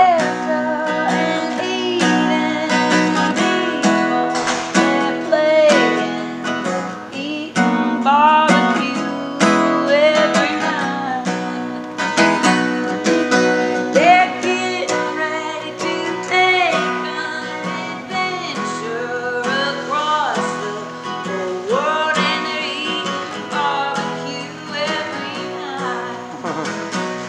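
Music: strummed acoustic guitar with a singing voice over it, a song that fades down a little near the end.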